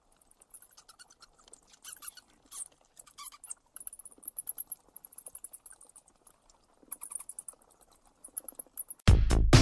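Bats squeaking and chittering in rapid trains of very high-pitched chirps and clicks, as an animated-intro sound effect. Loud electronic dance music cuts in suddenly near the end.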